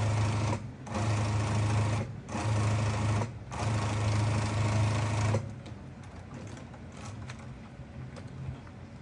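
Industrial sewing machine stitching in four short runs with brief pauses between them. After about five seconds it stops stitching, and a quieter hum runs on until near the end.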